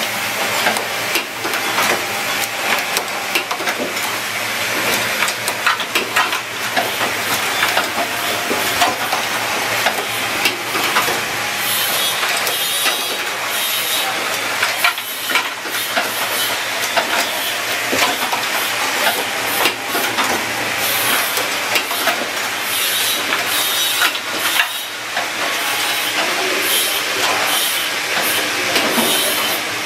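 Automatic switch assembly machine running: a constant rapid clatter of clicks and knocks from its pneumatic cylinders and indexing mechanisms, with repeated bursts of compressed-air hiss.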